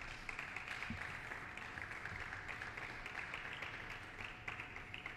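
Audience applauding, a dense patter of clapping that slowly fades away near the end.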